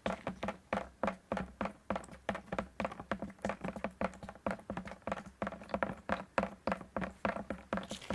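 Raindrops falling into a metal can in a quick, steady rhythm, about four drops a second. Each drop lands as a sharp tap with a short hollow ring.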